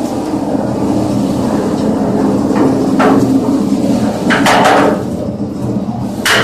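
Homemade concrete mixer running steadily on its gasoline engine, with a loud metallic clank about halfway through, a cluster of clanks a second later and more near the end.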